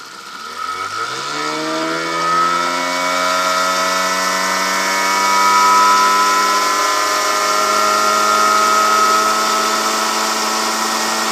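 Johnson 15 hp outboard motor accelerating from idle, its pitch climbing quickly over the first couple of seconds, then running steadily at full throttle.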